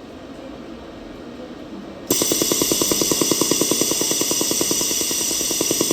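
200W laser welding machine firing a rapid, even train of pulses on titanium braces, starting suddenly about two seconds in and cutting off abruptly at the end.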